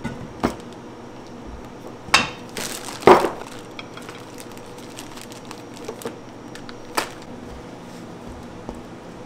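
Kitchen work sounds: scattered knocks and clatters of utensils and containers being handled and set down. The loudest pair comes two to three seconds in, with a few lighter taps later, over a steady low room hum.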